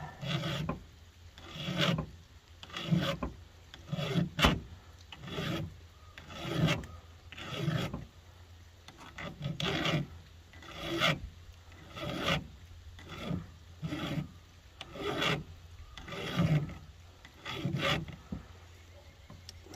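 Hand file rasping across the teeth of a chainsaw chain on its bar, in even strokes about one a second.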